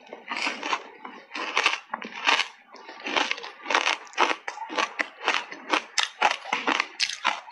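Mouthful of matcha-powdered ice being chewed: a close run of crisp crunches about two a second, coming faster near the end.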